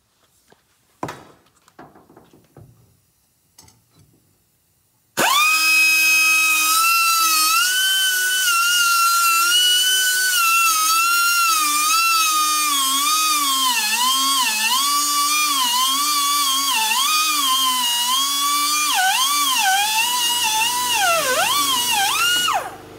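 Air-powered cut-off tool's abrasive wheel whining at high pitch as it cuts through protruding bolt ends. The whine starts suddenly about five seconds in after a few light knocks, and its pitch wavers and dips again and again while cutting. It stops just before the end.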